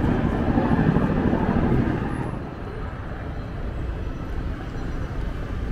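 Road traffic noise with a steady low rumble, louder for about the first two seconds and then easing off as the vehicles pass.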